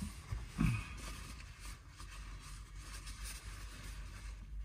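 Faint rustling and handling of a burger and its paper wrapper inside a car, over a low steady rumble, with one brief thump about half a second in.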